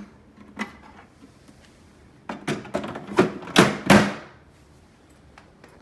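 The plastic water tank of a Frigidaire 70-pint dehumidifier being pushed back into the unit: a single knock, then a quick run of clunks and thumps over about two seconds as the tank slides in and seats.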